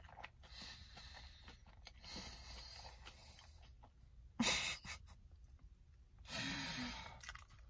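A man's soft, audible breathing between bites: breathy exhales, a short sharp puff of breath a little past halfway, and a longer breathy exhale near the end.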